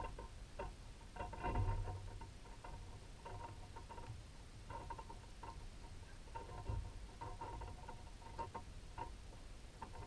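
Red-bellied woodpecker pecking at sunflower seeds in a metal hanging feeder: clusters of quick, sharp taps in bursts, with a duller knock about one and a half seconds in and again near seven seconds.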